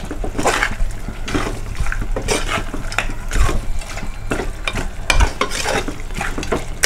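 Steel spoon stirring and scraping chilli-coated mutton pieces around a pressure cooker pot in repeated, uneven strokes, with metal scraping against the pot's sides and bottom.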